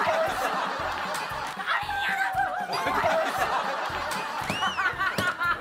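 A group of people laughing hard together, with a few high, wavering voice cries over the laughter.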